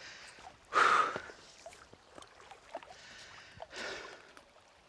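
A short splash of lake water about a second in, then a loud exhale from a person who has just drunk lake water from a plastic bottle, near four seconds.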